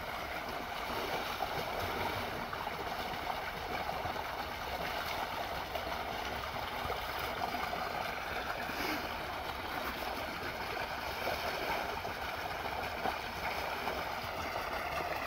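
Water gushing steadily from a pipe into a concrete tank, with splashing as someone washes hands and face in the stream.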